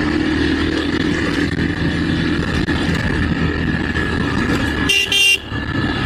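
Motorcycle engine running steadily at riding speed, with road and wind noise, and two quick horn toots about five seconds in.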